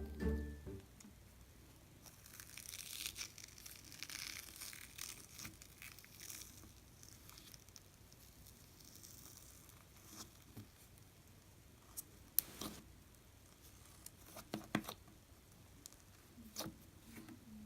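Jelly cube slime, with melamine foam cubes mixed through it, being stretched and squished by hand, giving faint crackling, tearing sounds. A few sharp pops come in the second half.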